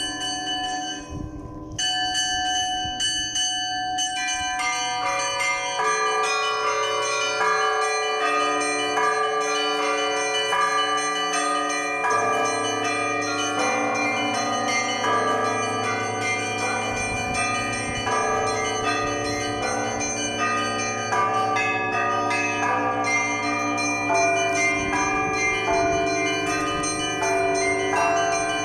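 Church bells rung together in a Russian-style peal (zvon): several bells of different pitches struck again and again, their ringing overlapping, with a deeper bell joining about twelve seconds in and dropping out a little before the end.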